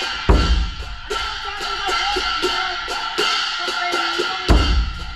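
Lao Buddhist temple drumming: a large temple drum struck with two heavy beats, just after the start and again near the end, over a quick steady beat of cymbals and gongs, about two to three strokes a second, with a gong tone ringing on.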